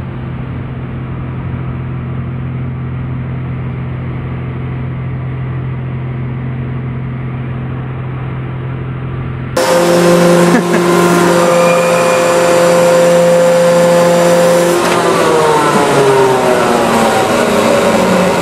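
The pump motor of a 500-ton hydraulic press runs with a steady hum while the ram squeezes a fitness ball. About ten seconds in, the sound cuts abruptly louder and brighter to a higher pump tone. Near the end the pitch falls away as the pump winds down.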